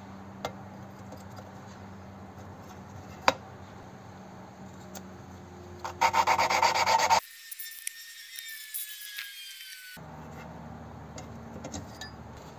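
An engine valve being lapped into its seat in the 292's cast-iron cylinder head. The lapping stick is worked back and forth so the grinding compound rasps between valve and seat, with a louder burst of quick strokes about six seconds in.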